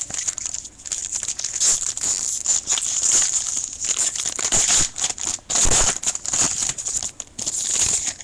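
Foil wrapper of a baseball card pack crinkling and tearing as it is opened and handled.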